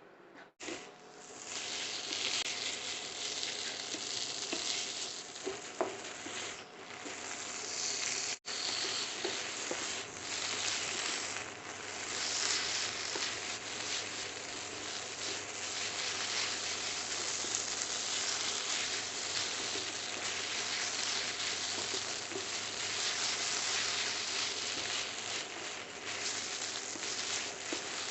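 Vegetables and noodles sizzling in hot oil in a pan while being stir-fried: a steady crackling hiss with small uneven fluctuations. It starts about a second in and breaks off once very briefly.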